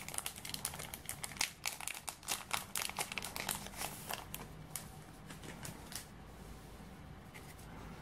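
Foil wrapper of a trading-card booster pack crinkling as it is handled and the stack of cards is slid out of it. The crackling is dense for the first four seconds or so, thins out, and stops about six seconds in.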